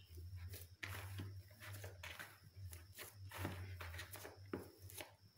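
Hands kneading soft chapati dough in a plastic basin: a run of soft, irregular thuds, roughly one a second, as the dough is pressed and turned. A low steady hum sits underneath.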